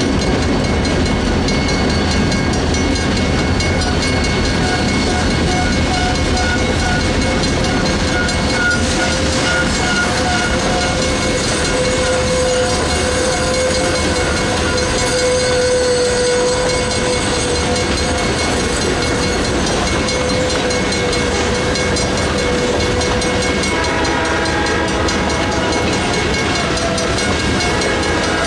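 Mechanical railroad crossing bell ringing over the rumble and wheel clatter of a freight train passing through the crossing. Long steady ringing tones sound over the train for much of the time, and a new set of tones comes in near the end.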